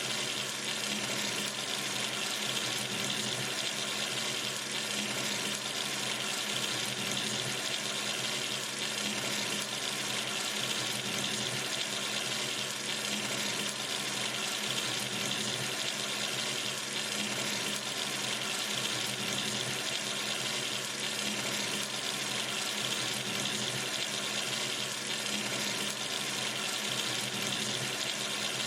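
Water running steadily from a sink tap into the basin, an even hiss-like splashing with no change in flow.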